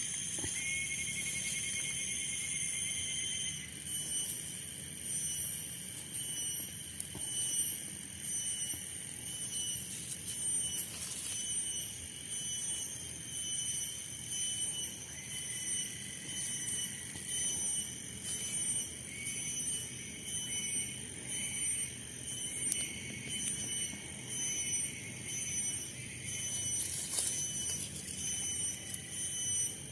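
Cicadas calling with a shrill, high-pitched drone that starts abruptly, holds steady for a few seconds, then pulses about once a second.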